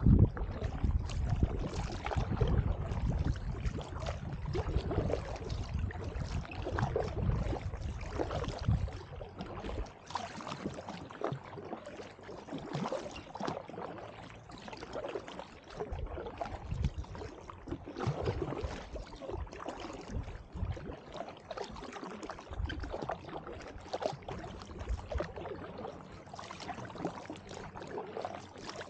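Double-bladed kayak paddles dipping and pulling through the water in a steady rhythm of strokes, with water splashing and lapping against an inflatable drop-stitch canoe. A low rumble underneath drops away about ten seconds in.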